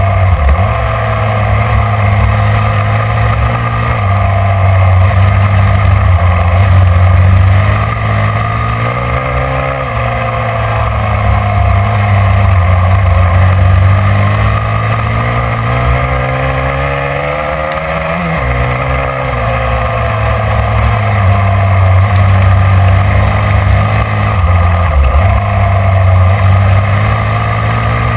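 Motorcycle engine running hard, its revs climbing and falling repeatedly through gear changes, with one long rising pull that drops off sharply about two-thirds of the way through.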